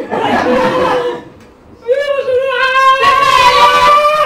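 A woman's voice singing: a short breathy phrase, then after a brief pause one long held high note that rises slightly near the end.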